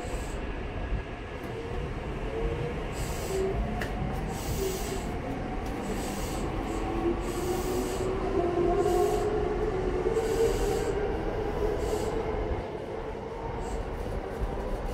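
Railway noise heard through the open doors of a stopped commuter train car: a steady low rumble, with several motor-like tones gliding up and down in pitch that are loudest about eight to eleven seconds in, and short hisses in between.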